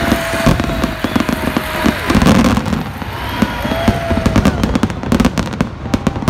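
Aerial fireworks barrage: shells bursting in quick succession with dense crackling, thickest near the end. A held whistle-like tone sounds over it twice.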